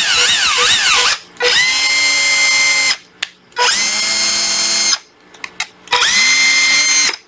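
Panasonic EZ74A1 cordless drill driver run with no load. First the motor speed wavers up and down for about a second, then it makes three short runs, each spinning up quickly to a steady whine. A few clicks come between the second and third runs.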